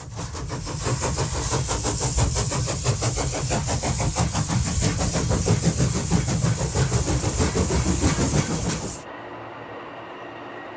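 Loud rumble and fast, even clatter of a passenger train heard from on board, cutting off abruptly about nine seconds in to a quieter steady running sound.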